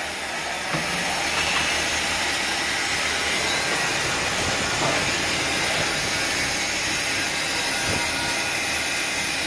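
DELI SCH heavy-series profile machining center milling an aluminium profile under flood coolant: a steady high-pitched hiss of the spindle cutting and the coolant spray, with a faint knock or two.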